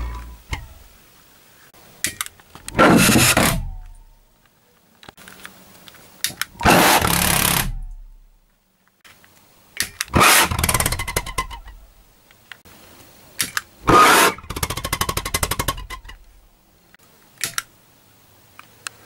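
Homemade Reynst pot pulse jet, a fire-extinguisher shell with a steel pipe, lit four times: each time it catches with a burst of rapid popping that dies out after a second or so, as it will not keep running. Small clicks sound in the quiet gaps between.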